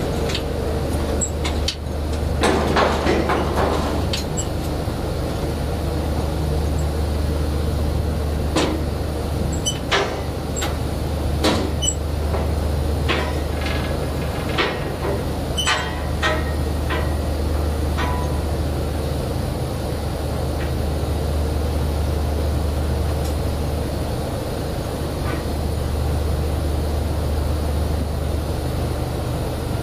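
Drilling rig running with a steady low engine drone, broken by scattered sharp metal clanks and knocks through the first half, typical of pipe being latched and racked while tripping pipe.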